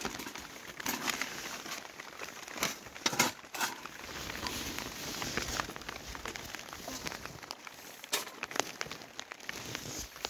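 Rustling and crinkling, with several sharp metal clicks and knocks as a round kerosene heater's wire-guarded top is handled and lifted off its burner base; the loudest knocks come about 3 seconds in and again around 8 seconds.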